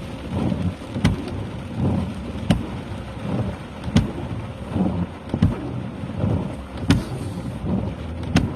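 Rain on a vehicle, with a sharp knock about every second and a half and low rumbling between the knocks.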